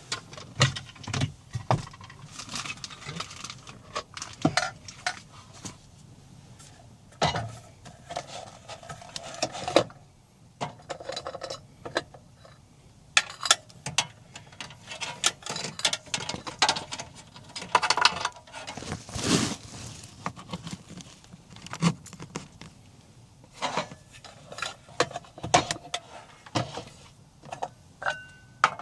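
Irregular clatter and clinks of small hard objects being handled and set down, with a short steady tone near the end.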